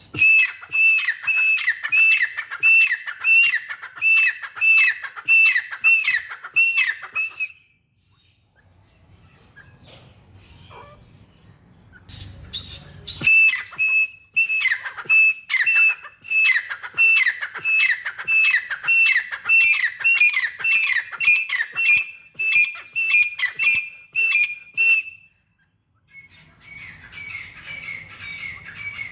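Dakhni teetar (grey francolin) calling: loud, ringing whistled notes repeated about twice a second, each sliding down in pitch, in two long bouts with a pause between them, then a softer series near the end.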